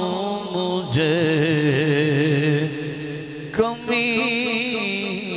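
Unaccompanied male voice chanting a naat in long, wavering held notes, broken off abruptly twice.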